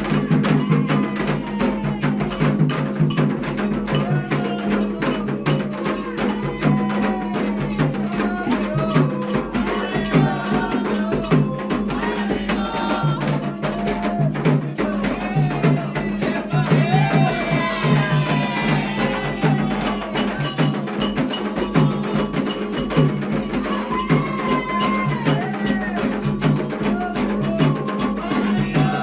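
Candomblé ritual music: hand drums and a bell keep a fast, steady beat while voices sing a chant over them.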